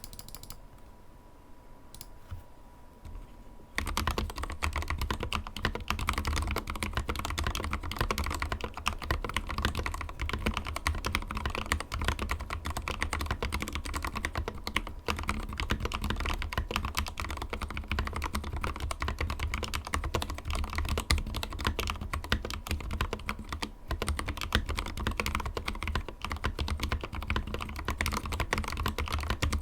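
Fast, continuous typing on a Drop CTRL mechanical keyboard with lubed Gateron Black Ink linear switches and clipped, lubed stock stabilizers. The typing starts about four seconds in, after a quiet opening with a faint steady tone.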